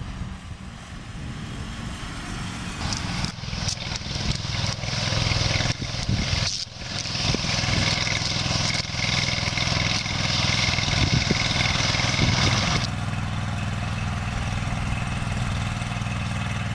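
Brush fire truck's engine running as it drives across a field. From about three seconds in, a loud steady hiss sits over the engine and stops abruptly near the end, with a thin high whistle in it during its second half.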